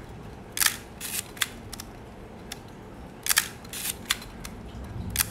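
Nikon FM's mechanical focal-plane shutter fired repeatedly at 1/250 second. Each release is a sharp double click of mirror and shutter, about half a second in, about three seconds in and again near the end. Smaller single clicks in between come from the film-advance lever being wound to cock the shutter again.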